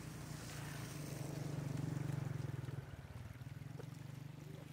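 A small engine drones steadily, growing louder around the middle and then easing back.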